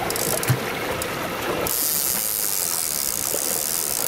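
Steady hiss of wind and water on an open fishing boat at sea, with an engine drone beneath it and a single thump about half a second in.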